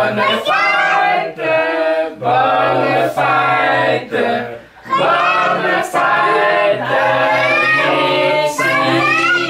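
A group of adults, men's and women's voices together, singing a birthday song unaccompanied in short held phrases, with a brief pause about halfway through.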